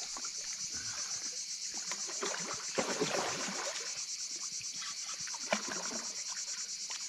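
Water splashing and sloshing as a hooked carp is played at the surface by a wading angler, loudest in a burst about three seconds in. A steady chorus of insects chirps in rapid pulses throughout.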